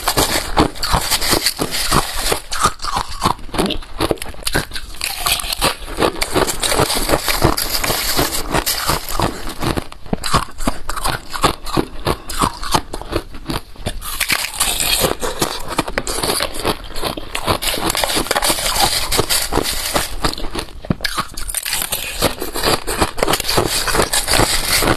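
Balloon-frozen ice being bitten and chewed close to the microphone: a dense, continuous run of crunches and crackles.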